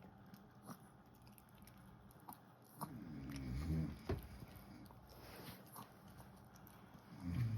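A sleeping pet snoring: two snores about four seconds apart, with a few small clicks between them.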